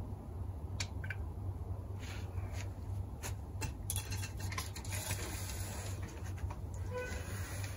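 Scattered light clicks and knocks as a telescopic antenna mast, strung with its wire elements and spacers, is handled and set back onto its ground-spike mount. The clicks come over a steady low background rumble.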